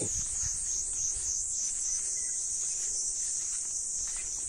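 Steady, high-pitched chorus of insects with a fast, regular pulse, with a low rumble underneath.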